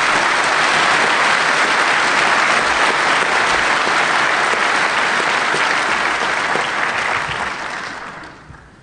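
Audience applauding, steady and loud, dying away near the end.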